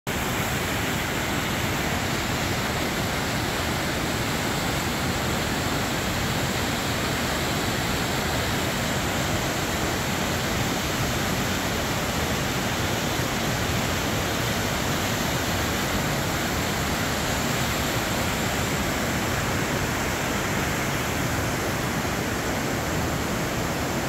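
Waterfall pouring down a narrow rock gorge into a plunge pool: a loud, steady rush of falling water that does not change.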